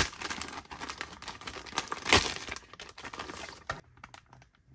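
Plastic poly mailer being torn open and handled: dense crinkling and crackling of the plastic, with one louder crack about two seconds in, dying down to lighter rustling of packaging near the end.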